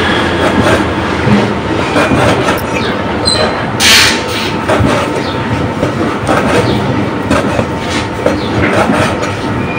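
Cleaver chopping raw pork on a round wooden chopping block: a steady run of knocks on the wood, with one sharper, louder hit about four seconds in.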